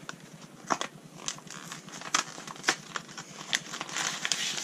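Plastic zip-top bag and packaging crinkling and rustling as they are handled, in irregular light clicks and crackles.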